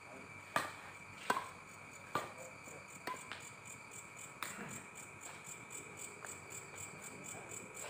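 Badminton rackets striking a shuttlecock in a rally: sharp pops about once a second for the first few seconds, then sparser. Night insects chirr steadily in the background.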